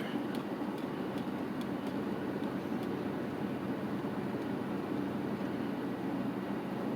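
Car driving on a road, heard from inside the cabin: a steady low rumble of engine and tyre noise, with a few faint ticks.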